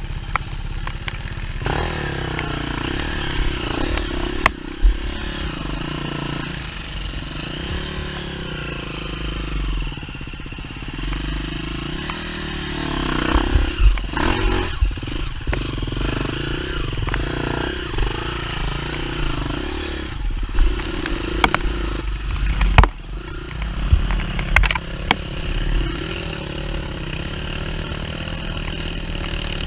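Off-road dirt bike engine running as it is ridden along a trail, its pitch rising and falling with the throttle, with scattered knocks and clatter.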